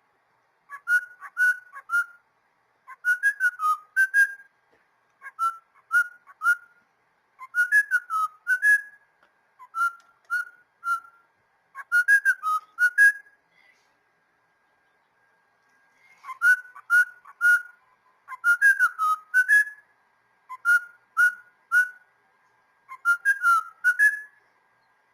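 A cockatiel whistling a tune: short phrases of three to six quick, clear whistled notes, repeated again and again with brief pauses between them and one longer pause about halfway through.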